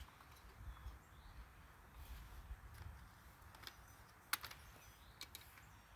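Near silence with a low background rumble and a few faint, light clicks of small parts being handled on a chainsaw being taken apart; the sharpest click comes a little past the middle.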